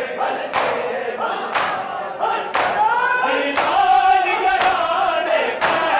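A crowd of men chanting a noha, a Shia mourning lament, together, with loud slaps of matam chest-beating landing in unison about once a second.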